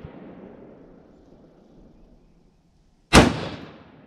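A single rifle shot about three seconds in, fired from a scoped rifle fitted with a Mission First Tactical muzzle brake, with a long echo trailing off. The echo of the previous shot is still dying away at the start.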